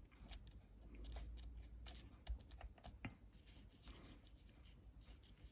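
Near silence with faint rubbing of fingertips pressing and smoothing glued paper onto a card, and a few soft taps and clicks.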